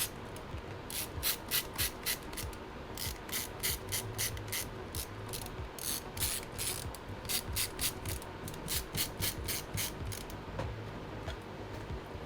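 Screwdriver ratcheting in quick runs of sharp clicks, several a second with short pauses between runs, as small screws are driven into a Chromebook motherboard.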